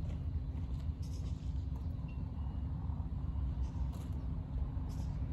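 Steady low outdoor rumble with a faint steady hum underneath; no single event stands out.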